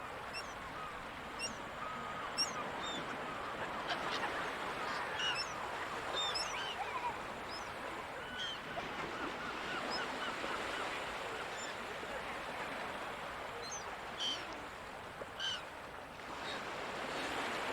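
Gulls calling over the sea, many short high calls scattered throughout with a few louder ones near the end, over a steady wash of ocean surf that swells toward the close.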